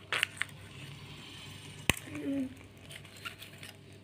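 Toy packaging being handled and opened: soft rustling with a few small clicks, and one sharp snap about two seconds in.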